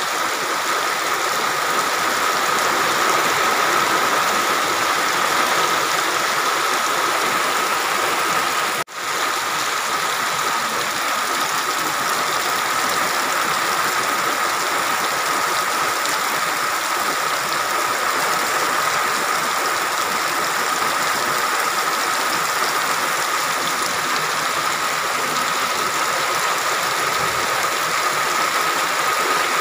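Heavy rain pouring steadily, a loud even hiss of rain falling on wet ground and plants, with a momentary break in the sound about nine seconds in.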